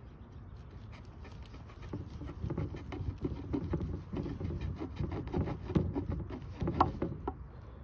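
Knife sawing at a squirrel's leg to cut the foot off: a run of quick, uneven cutting strokes with small sharp clicks. It starts about two seconds in and is loudest near the end.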